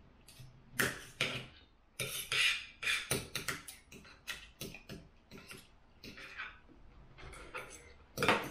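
Knife and fork clicking and scraping on a dinner plate while cutting food, mixed with close-up chewing and mouth sounds: a long run of short, irregular clicks and scrapes.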